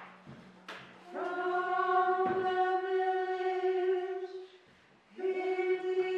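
A small chorus singing, holding one long note for about three seconds, breaking off briefly, then coming in again on another held note. A short click sounds just before the singing begins.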